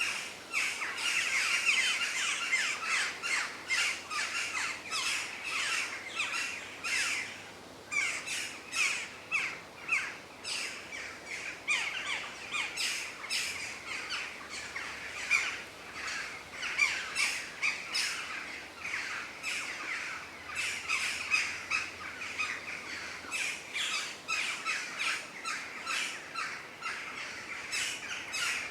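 Many birds calling and singing together in a forest: a busy chorus of quick chips, short falling notes and squawks overlapping without a break, with a brief lull about seven seconds in.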